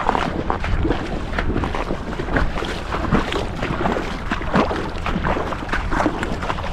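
Pond water sloshing and splashing in irregular strokes, with wind buffeting the microphone.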